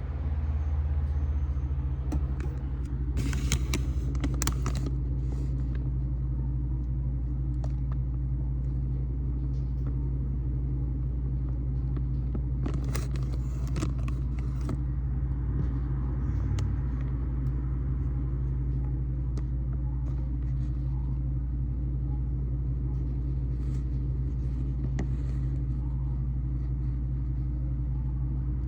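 Steady low rumble, like a running vehicle, with two brief bursts of hissing noise, about three seconds in and again about thirteen seconds in.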